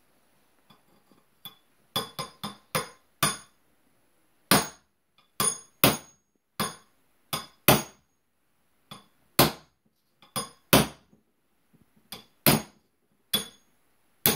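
Small hammer striking a steel pin punch to drive the pins out of a pinned AR-15 front sight base: sharp metallic taps with a short ring, in irregular groups of one to four. The tapping starts about two seconds in.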